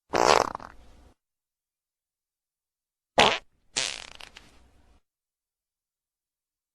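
Fart sound effects: one fart of about a second at the start, then about three seconds in a short one followed by a longer one that trails off with sputters, with dead silence between them.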